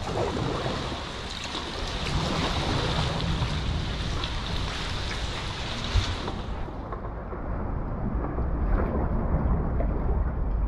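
Sea water sloshing and lapping around a sea kayak and the rock at a sea-cave mouth, with paddle splashes and wind on the microphone. About six seconds in there is a sharp click, and then the bright hiss drops away, leaving a lower, duller rumble.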